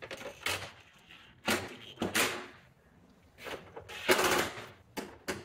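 Several short bursts of knocking and scraping from a tool and plastic bumper trim being handled while bolts are fitted at the top of a car's front bumper. The longest and loudest burst comes about four seconds in.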